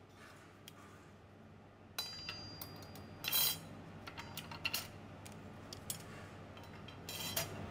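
Steel and friction clutch discs of an A6MF1 six-speed automatic transmission clinking as they are laid one by one into the clutch drum: a string of light metallic clicks and clinks, with a brief metal ringing about two seconds in and the loudest clinks a little after three seconds.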